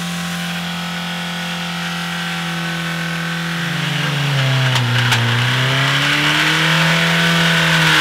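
Volkswagen 2.0 ABA inline four-cylinder engine running with no oil, held at a steady high rev, around 5,000 rpm. From about three and a half seconds in its speed sags and surges unevenly and it grows louder, with two sharp clicks about five seconds in, as the oil-starved engine is run toward failure.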